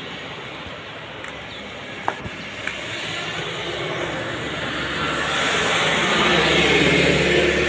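A road vehicle passing on the adjacent road, its tyre and engine noise swelling to its loudest about six to seven seconds in and starting to fade at the end, over steady traffic hum. A couple of short clicks about two seconds in.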